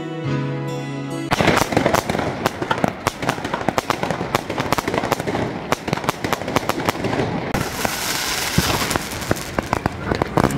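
A few notes of soft music cut off about a second in. After that comes a dense, continuous crackle of fireworks and firecrackers, many rapid pops and bangs overlapping.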